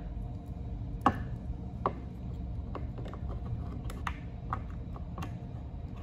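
Scattered light clicks and taps of plastic push-button contact blocks and a wire being handled during wiring, with the sharpest click about a second in.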